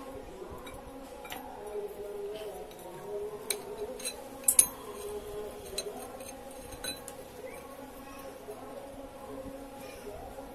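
Steel parts clinking as they are handled: scattered sharp metallic clinks, the loudest about halfway through, over a steady low hum.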